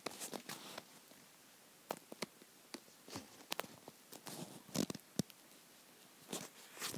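Faint, irregular clicks and rustles of a handheld phone being carried and moved about, rubbing against fingers and clothing.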